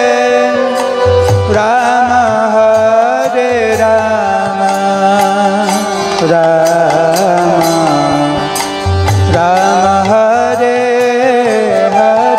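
Indian devotional music: a gliding, ornamented melody over hand-drum strokes.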